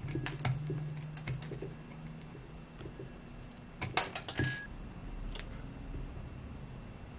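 Metal scissors snipping and scraping at the sheath of a thin multi-core electric scooter hub motor cable: a series of small sharp clicks, loudest in a quick cluster about four seconds in.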